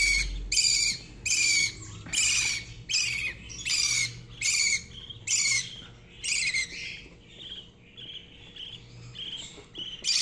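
Budgerigar chick's food-begging calls while it is hand-fed from a syringe: short rough calls about two a second, turning to softer, quicker chirps about two-thirds of the way in.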